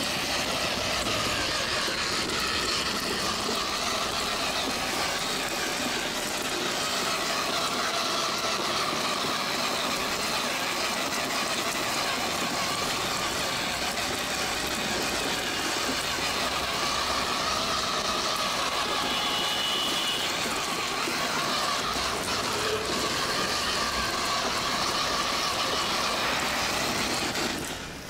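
Small electric gear motor of a cardboard RC toy truck whirring steadily as it drives, with its cardboard wheels rolling over paving tiles.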